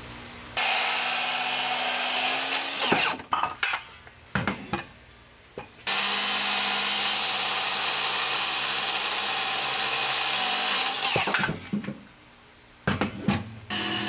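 Milwaukee M18 FUEL cordless circular saw cutting through a thick cherry board. It runs for a couple of seconds from about half a second in, stops with a few sharp clicks and knocks, runs steadily again for about five seconds from about six seconds in, then drops away, with more clicks and the saw starting again near the end.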